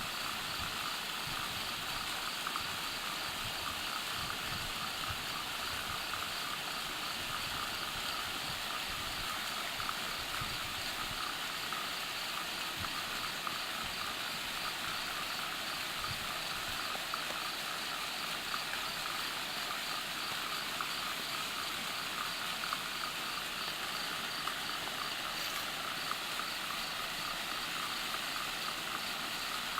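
Spivey Falls waterfall: a steady rush of falling water, an even hiss that does not change.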